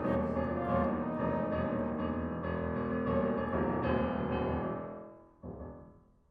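Flute and grand piano playing a contemporary chamber piece: a dense, ringing piano texture with the flute, fading away about five seconds in, then one last soft piano note that dies out.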